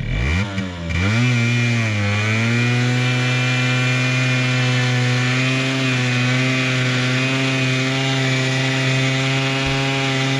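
Aprilia RS4 50's 50 cc two-stroke single-cylinder engine revved hard and held at high revs for a burnout, the rear wheel spinning in snow. The revs climb quickly in the first second, sag briefly about two seconds in, then hold steady as a buzzing drone until they start to fall at the very end.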